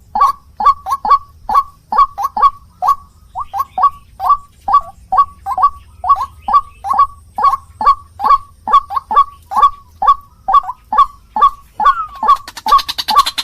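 White-breasted waterhen calling: a fast run of short, repeated notes, about three a second, in uneven groups. A hiss comes in under the calls near the end.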